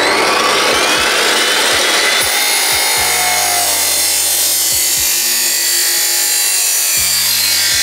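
Abrasive chop saw (drop saw) running and cutting through a steel exhaust tube, a loud continuous grinding whine; the pitch of the whine drops early on as the cut-off disc bites into the metal.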